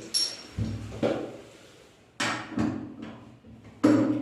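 A few separate knocks and metallic clinks as metal door-closer hardware and tools are handled while the closer's arm is fitted. The loudest knock comes near the end.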